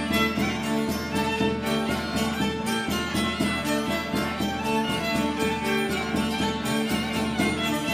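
Instrumental music led by a violin, with many quick note onsets in a steady pulse.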